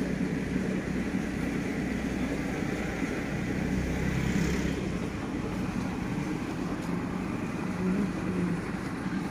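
An engine running steadily with a low drone; its deepest hum eases off about halfway through.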